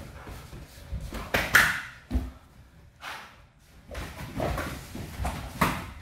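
Irregular thuds and slaps of kicks and strikes landing on padded sparring gear, mixed with feet stamping and shuffling on a wooden floor; the loudest hit comes about a second and a half in.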